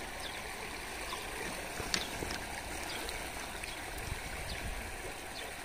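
Steady wash of running water with a low rumble, and a few faint ticks, the clearest about two seconds in.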